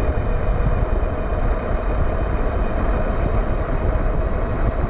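Wind rushing over the microphone and fat tyres rolling on asphalt as a 1000 W e-bike runs at about 25 mph on throttle only, with a faint steady whine under the noise.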